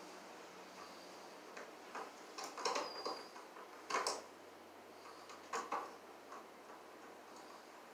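Scattered clicks and knocks, a hand screwdriver and a duplex outlet against an electrical box as the outlet is pushed into place and screwed to the box. The sharpest come about 3 and 4 seconds in, with a pair near 6 seconds.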